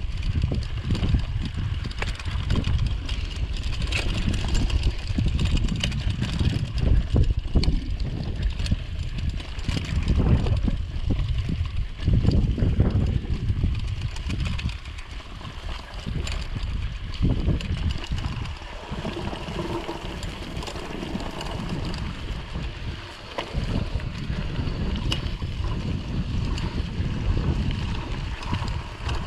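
Mountain bike running downhill over rough trail, with frequent knocks and rattles and heavy wind rumble on the microphone.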